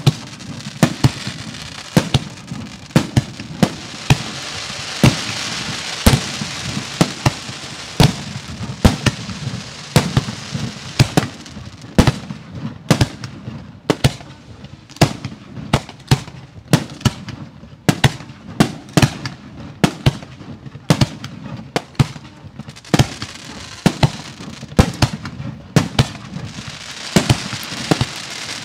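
Professional 1.3G fireworks display going off: a rapid string of sharp bangs, about two a second. A crackling hiss swells between the bangs a few seconds in and again near the end.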